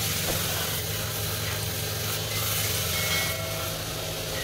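Belt sander motor running with a steady hum while an electric iron's soleplate is ground against the abrasive belt. The grinding hiss swells and fades again in passes about a second or so long.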